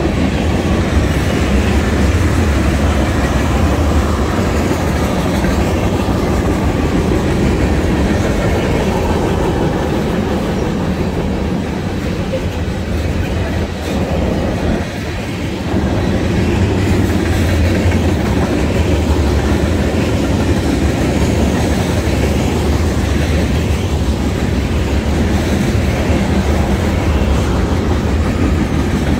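BNSF freight train's tank cars and other freight cars rolling past, a steady rumble of steel wheels on the rails that dips slightly for a moment about halfway through.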